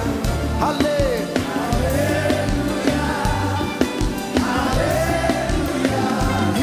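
Live gospel worship music: voices singing over a band with bass and drums.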